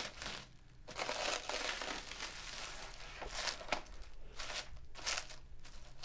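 Clear plastic protective wrap crinkling and rustling in irregular bursts as it is pulled and smoothed off a flat pack of aluminium enclosure panels.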